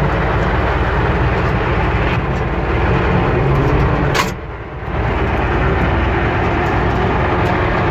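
Universal U650 tractor's four-cylinder diesel engine running steadily while at work spraying herbicide. About four seconds in there is a short click, and the sound dips for half a second before returning.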